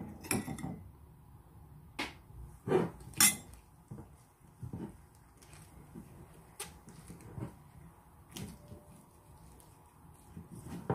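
Gloved hands kneading a crumbly beso (roasted barley flour) mixture in a ceramic bowl: irregular soft knocks, taps and rubs of fingers and dough against the bowl, the loudest about three seconds in.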